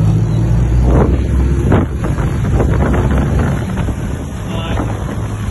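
Wind buffeting the microphone on a boat in rough sea, over a heavy low rumble of the boat and waves. Two short thumps come about one and two seconds in.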